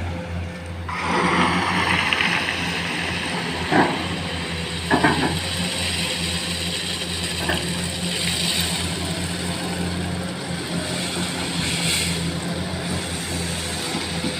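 Diesel engine of a Komatsu PC210 excavator running steadily at working speed, with a few short sharp knocks of metal, about 4 and 5 seconds in.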